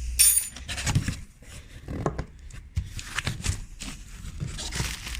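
Cardboard box and packaging being handled and pulled open: irregular rustles, scrapes and knocks.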